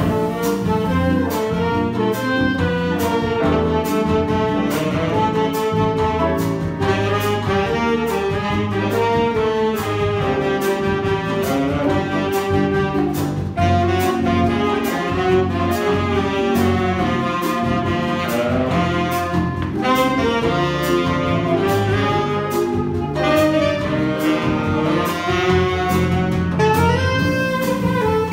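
Small jazz combo playing a bossa nova: clarinet and saxophones carry the melody together over piano, electric bass, guitar and drums, with a steady light beat.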